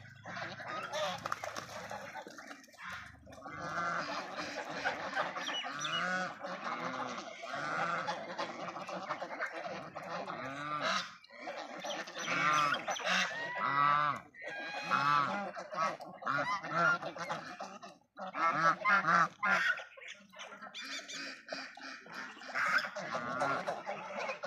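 A flock of domestic geese honking, many calls overlapping one another with only brief pauses.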